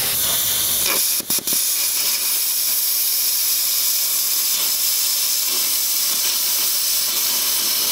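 Plasma cutter hissing steadily as it cuts through a rusted steel truck frame rail, with two brief breaks a little over a second in.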